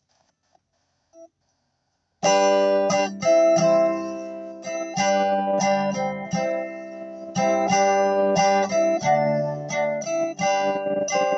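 Guitar chords strummed, starting about two seconds in after near silence. The recording is glitchy, with the sound dropping out for an instant again and again between chords.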